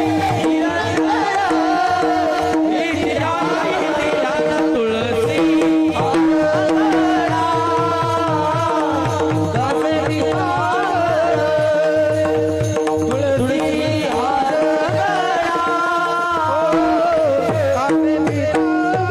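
Varkari kirtan devotional music: a wavering melody over a steady held drone, with a fast hand-drum rhythm running underneath.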